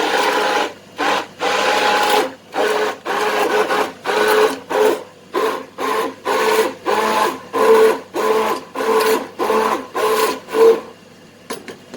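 Electric blender blitzing the curry base of fried onions, spices, tomatoes and water. It runs continuously at first, then is pulsed on and off about twice a second, and stops shortly before the end.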